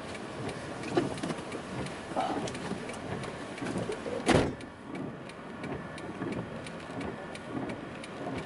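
Handling noises inside a stopped car: rustling and light clicks, with one sharp thump about four seconds in.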